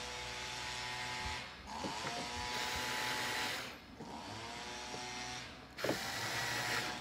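Small cordless electric screwdriver driving screws into a plastic third brake light housing, its motor whining in about four short spurts with brief stops between, the pitch rising as it spins up again. The screws are run in gently so as not to over-tighten and crack the plastic.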